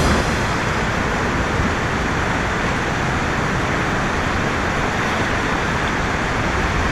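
Steady rushing of a fast, shallow river flowing close to the microphone, an even hiss and roar of moving water.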